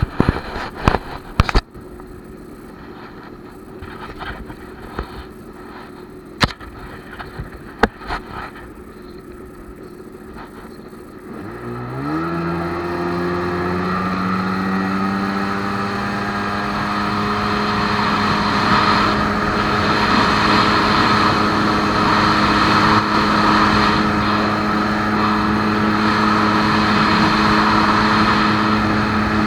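Jet ski engine idling low with several sharp knocks. About twelve seconds in the throttle opens: the engine pitch climbs quickly, then holds steady and loud at speed over a rushing hiss of water.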